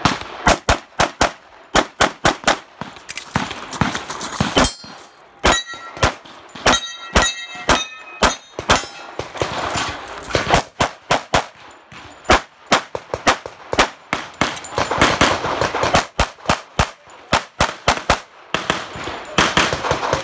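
Rapid pistol fire: strings of shots in quick succession, broken by short pauses. Between about five and nine seconds in, several hits leave a short metallic ring as steel targets are struck.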